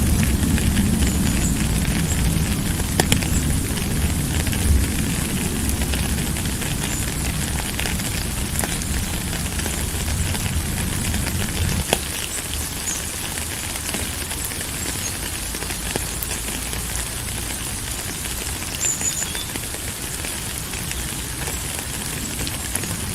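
Steady rain falling, a dense crackling patter of many small drop impacts. A low rumble under it dies away about halfway through.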